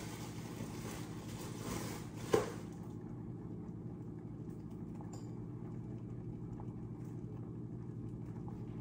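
A steady low hum, with a soft hiss that dies away about three seconds in and a single sharp knock just before it.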